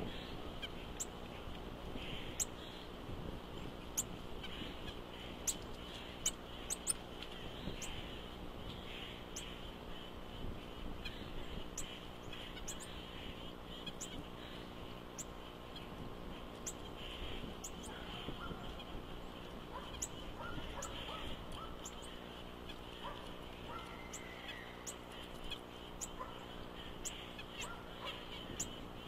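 Nuthatches calling: a scattered string of short, very high chips, with short lower calls joining in the second half. A steady low hum runs underneath.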